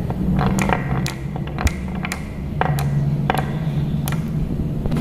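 Marbles clicking as they are set down one after another in a carved wooden track and knock against each other: about ten sharp, irregular clicks over a steady low hum.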